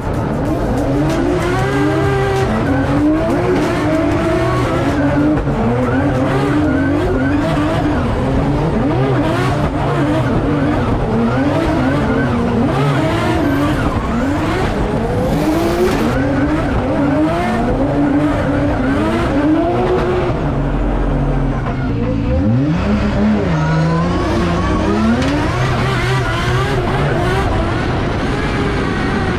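Drift car engine revving hard, its pitch climbing and dropping over and over as the throttle is worked, with tyres squealing.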